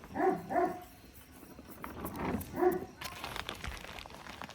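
Short animal calls: two quick ones at the start and two more just past the middle, followed by a little light crackling.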